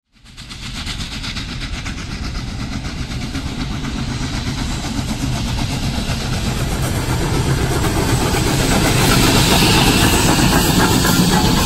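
Union Pacific Big Boy 4014, a 4-8-8-4 articulated steam locomotive, passing close by at speed, its exhaust a fast run of beats over the rumble of the running gear, growing louder as it comes abreast.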